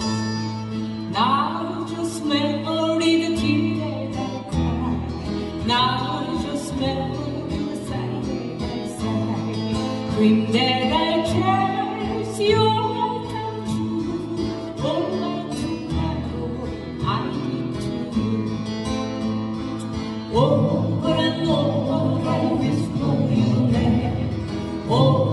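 Live acoustic-guitar band: several acoustic guitars strummed together with voices singing, amplified through a PA system.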